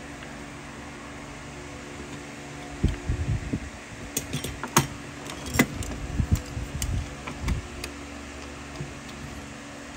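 A steady mechanical hum, with an irregular run of knocks and sharp clicks from about three seconds in to about seven and a half seconds in.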